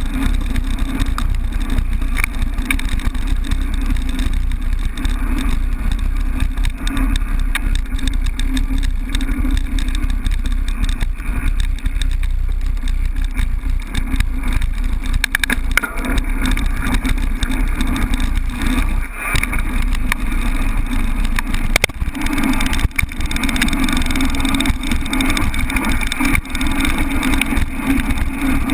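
Wind buffeting an action camera's microphone on a mountain bike riding fast down a rough dirt-and-gravel lane, over the steady rumble of the tyres, with a few sharp knocks as the bike rattles over bumps.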